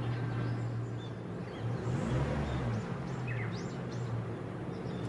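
A vehicle engine runs with a steady low hum, its pitch briefly shifting about two seconds in, and cuts off near the end. Birds chirp in the background.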